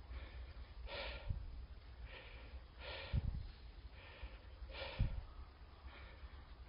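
Heavy breathing, one rough breath roughly every second, with a few dull low thumps among the breaths.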